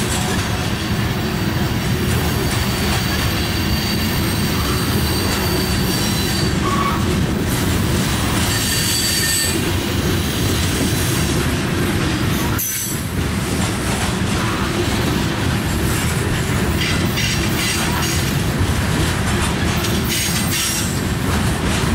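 Loaded covered hopper cars of a grain train rolling past close by: a steady rumble of steel wheels on rail, with high-pitched wheel squeal a few seconds in and again around nine seconds.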